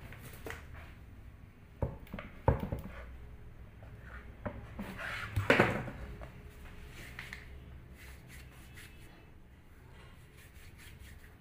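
Hands handling and folding rolled-out dough on a board: a few sharp knocks about two seconds in and a louder rubbing, rustling sound about five and a half seconds in, then quiet handling.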